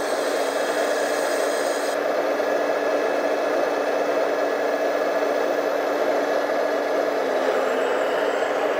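Remote-controlled model Liebherr 970 excavator running with a steady mechanical whir as it works its arm and bucket through heavy mud, the pitch dipping slightly near the end.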